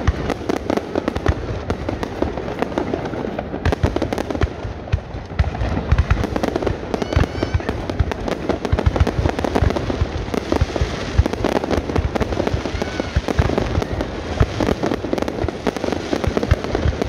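Fireworks display: aerial firework shells bursting overhead, many sharp bangs in quick succession without a break.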